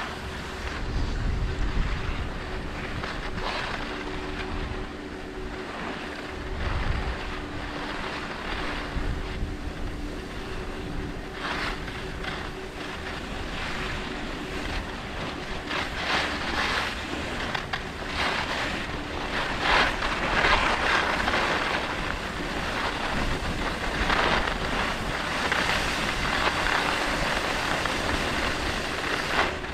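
Wind buffeting the microphone over the hiss and scrape of edges sliding on packed, icy snow. The scraping comes in louder surges from about twelve seconds in and grows stronger through the second half.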